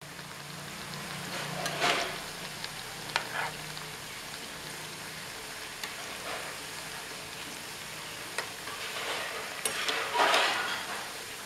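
Black-eyed pea fritters (bobbarlu garelu) deep-frying in hot oil in a kadai, a steady sizzle that swells louder about two seconds in and again near the end as a slotted spatula stirs and turns them. The spatula ticks lightly against the pan a few times.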